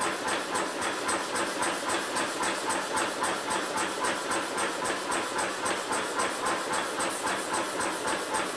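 Power hammer striking a hot steel tong blank held in a tong jig, in a steady run of blows at about three a second.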